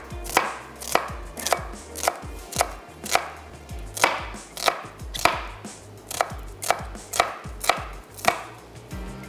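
Kitchen knife chopping on a cutting board in a steady rhythm of about two cuts a second, stopping about a second before the end.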